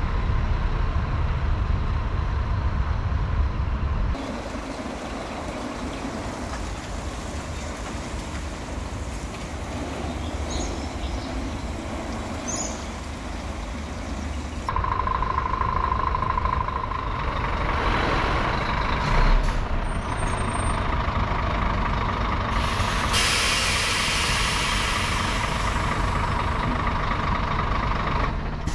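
Heavy truck running, with long hisses of air from its brakes; a steady rumble at the start, then a long hiss near the end.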